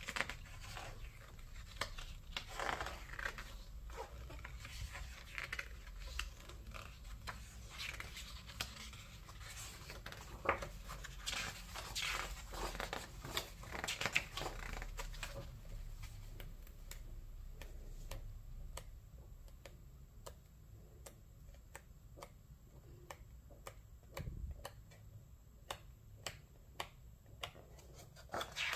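Pages of a hardback art book being turned and handled by hand: paper rustling and sliding, with many small ticks and taps. The ticks grow sparser and sharper in the second half.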